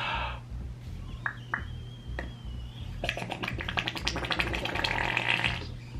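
Air blown by mouth through the slime in a slime bubble blower toy, gurgling and popping through the slime as a rapid crackling flutter for about two and a half seconds, starting about three seconds in. A few small clicks and a faint thin whistle come before it. The air is escaping without forming a bubble.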